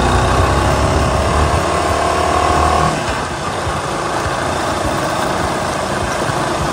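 Motorcycle running along a road with wind noise over the microphone; the low engine sound eases off about three seconds in.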